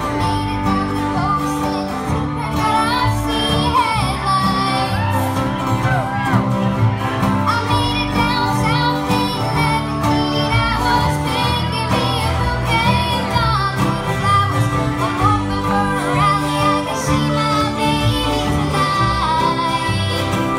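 Live bluegrass band playing with acoustic guitars, fiddle and upright bass, a young girl's voice singing the lead melody.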